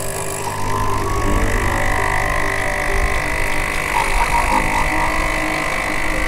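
Espresso machine running while a shot extracts: a steady hiss with a high whine, over soft background music.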